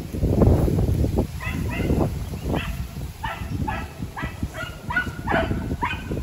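Hunting dog barking in a rapid run of short yelping barks, about two a second, each dropping slightly in pitch. A loud rustle comes in the first second before the barking starts.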